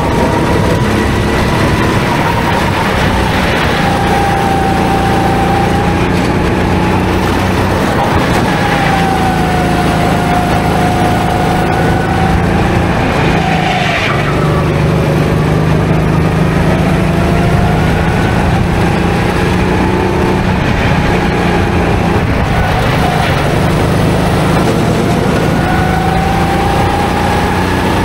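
Go-kart running continuously, its engine pitch rising and falling as it speeds up and slows down, with the deepest dip about halfway through.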